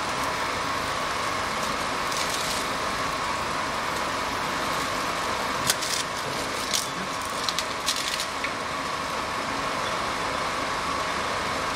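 Automatic shrink sleeve labeling machine running with a steady hum, hiss and a constant mid-pitched whine. A handful of sharp clicks and clinks come in a cluster about six to eight seconds in.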